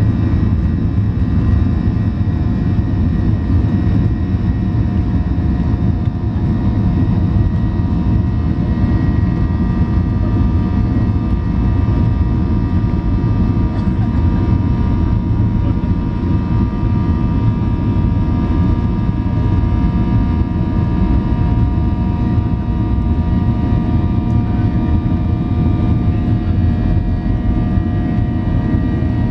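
Cabin sound of a Boeing 737-900ER's CFM56-7B turbofan engines running steadily as the airliner rolls along the ground: a loud, even rumble with several steady whining tones above it.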